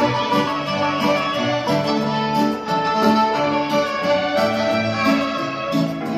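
Live instrumental music from violins and a grand piano, playing continuously with sustained, overlapping notes.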